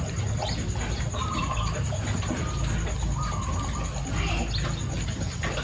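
Several short animal calls over a steady low background rumble.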